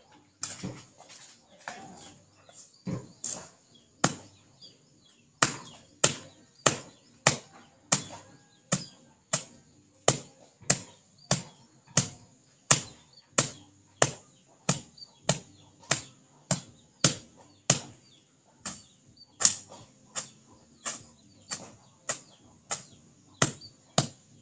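Hand-held blade chopping at low vegetation near the ground. It starts with a few irregular strikes, then settles about five seconds in into a steady rhythm of roughly two sharp chops a second.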